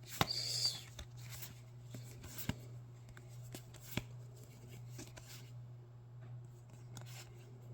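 Pokémon trading cards being handled and flipped through by hand: light rustling with a few sharp clicks, over a steady low hum.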